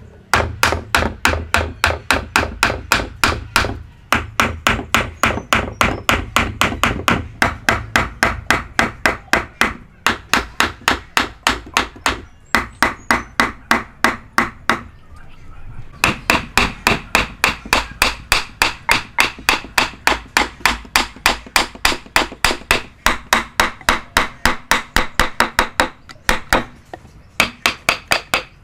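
Hammer driving a chisel into wood, struck quickly and steadily at about three to four blows a second, in long runs with a few brief pauses.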